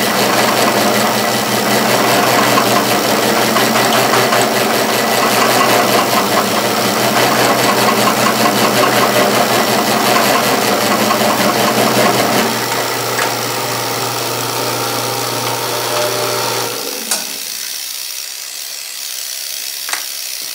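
Benchtop milling machine cutting a 100-thousandths-deep slot in square bar stock with a half-inch end mill: loud, steady cutting noise over the spindle motor's hum. About twelve seconds in it drops to a quieter running sound, then stops about seventeen seconds in, followed by a light click.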